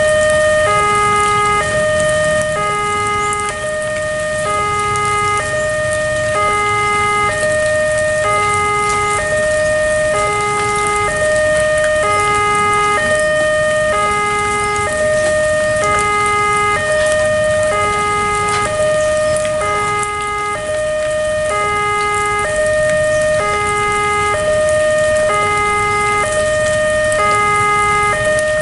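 Railway level-crossing warning alarm sounding a repeating electronic two-tone signal, a higher note alternating with a lower one, about one pair every second and a half, warning that a train is approaching. Steady heavy rain hisses underneath.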